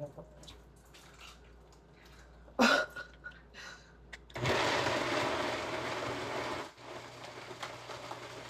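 A few handling knocks and one sharp clatter, then about halfway through a kitchen blender switches on and runs steadily on apples, kale and grapefruit in water. It dips briefly and then keeps running somewhat quieter.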